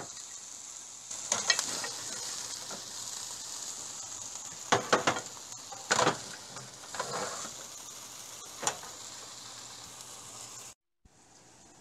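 Egg-and-vegetable omelet sizzling in a frying pan, with a spatula scraping and knocking against the pan several times as portions are lifted out. The sizzle cuts off suddenly near the end.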